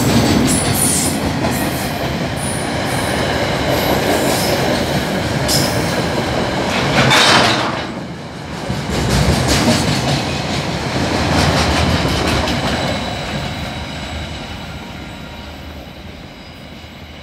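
Freight train wagons rolling past at speed, wheels clattering over the rails, with faint high-pitched wheel squeal in the first few seconds and a brief loud rush about seven seconds in. The noise fades away as the end of the train passes and it moves off.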